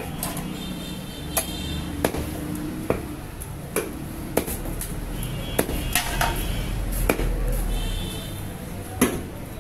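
Cleaver chopping tilapia into pieces on a wooden chopping block: about nine sharp chops at irregular intervals, the loudest near the end.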